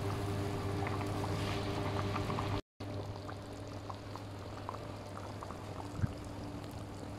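Chicken curry simmering in a frying pan on a gas burner, the sauce bubbling with small scattered pops over a steady low hum. The sound breaks off for a moment a little over a third of the way in.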